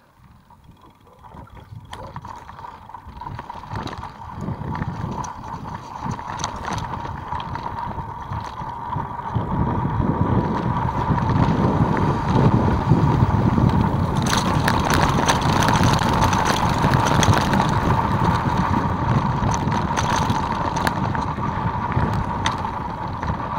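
Bicycle riding along a dirt trail: wind on the microphone and tyre rumble, with scattered knocks and rattles from the bike. It gets louder about ten seconds in.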